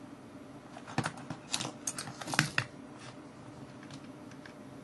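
A quick cluster of small clicks and scrapes, starting about a second in and lasting under two seconds, from fingers prying at the circuit board and plastic body of an opened Nikon Coolpix 5200 compact camera, trying to pop the board up. After that there is only faint room tone.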